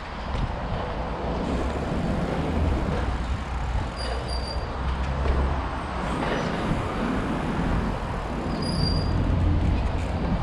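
Steady rumble of street traffic and wind on an action camera's microphone as a trials bike rolls slowly along a concrete ledge, with no sharp landings or impacts.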